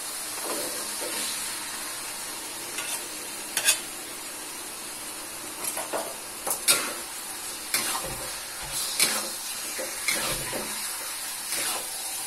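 Raw chicken pieces sizzling in a hot wok of sweet soy sauce spice paste, with a metal spatula scraping and knocking against the metal wok every second or two as they are stirred.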